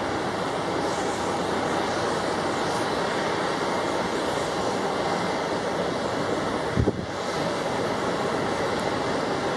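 Boeing 777-300 jet engines running at low taxi power as the airliner rolls by: a steady rushing hum with a faint whine. A brief low thump about seven seconds in.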